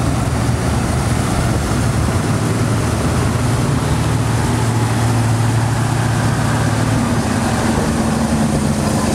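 M26 Pacific Dragon Wagon's 18-litre Hall-Scott six-cylinder petrol engine running steadily under way at low speed, its note shifting higher about seven seconds in.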